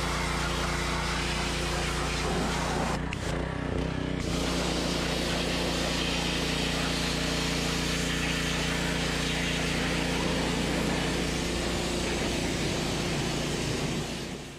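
Gas pressure washer at work: its Briggs & Stratton engine running steadily under the hiss of a high-pressure water jet from a 15-degree yellow nozzle. About three seconds in, the spray hiss thins for about a second and then comes back. The sound fades out at the very end.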